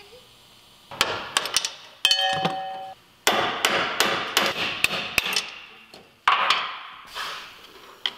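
Hammer blows on the steel parts of a Jeep's front axle during teardown: a few quick strikes, then one that rings metallically for about a second, then a steady run of about three blows a second, with one more strike near the end.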